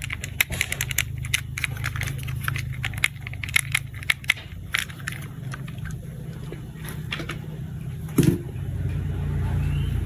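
Plastic toy parts clicking and rattling as they are handled and fitted together, with rapid clicks through the first half and a single louder thump about eight seconds in, over a steady low hum.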